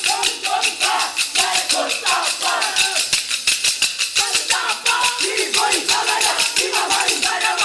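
Kolkali sticks, short wooden sticks struck against each other by the dancers, clacking in a fast, steady rhythm of several strikes a second, with voices singing the accompanying song.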